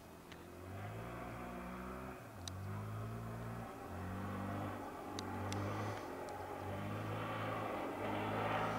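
Yamaha Raptor 700R quad's single-cylinder four-stroke engine under way, its note coming in spurts of throttle about a second long with short breaks between them, growing steadily louder.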